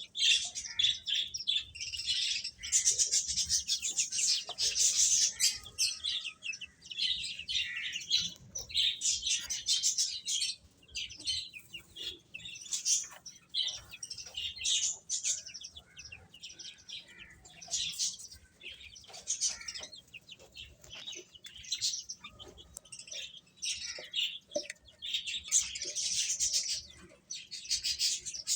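Baby chicks chirping continuously: many rapid, high-pitched peeps overlapping, with a few faint soft knocks beneath.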